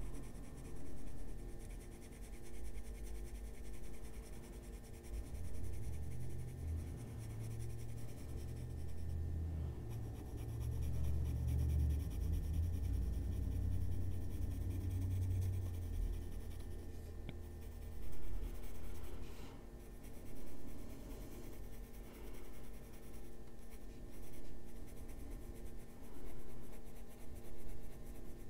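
Coloured pencil scratching on paper while shading, with a low rumble of hand and paper handling from about six to sixteen seconds in.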